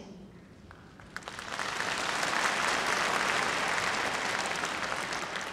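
Audience applause in a large hall: it starts about a second in, swells to a peak, then slowly fades.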